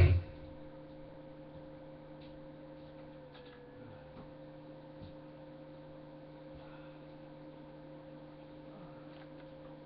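Loud music cuts off right at the start, leaving a faint, steady electrical hum with a few faint clicks.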